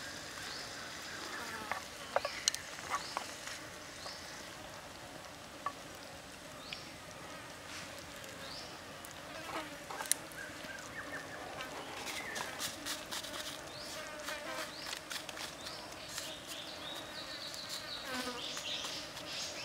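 Squid and green onions sizzling in a metal pan over a wood fire, with scattered pops and crackles that grow busier in the second half. Insects buzz and give short high chirps in the background.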